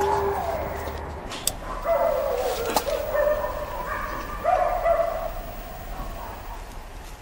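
A dog whining in several drawn-out whines, each under a second long.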